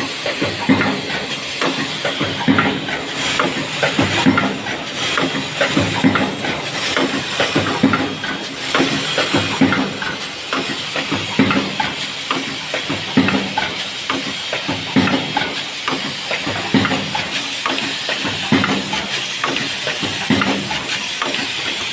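Paper lunch box forming machine running: a steady hiss with a continuous run of mechanical knocks and clacks.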